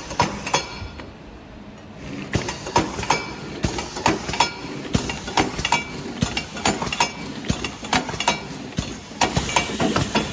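CX-RT tax stamp labeling machine running, small glass bottles clinking and knocking against each other on its conveyor in a fast, irregular string of clicks. A steady hiss comes in near the end.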